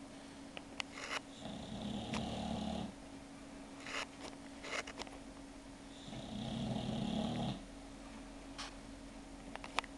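A sleeping pet snoring: two long snores about four seconds apart, each lasting about a second and a half, with a few faint clicks between them.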